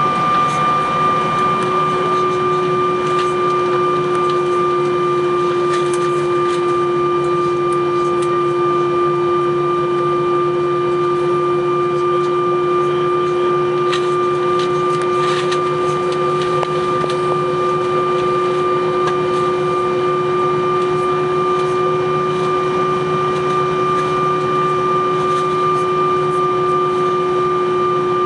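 Airbus A321 cabin noise while taxiing: the jet engines at idle give a steady, high-pitched whine of several held tones over a constant rush of air, with a few faint rattles.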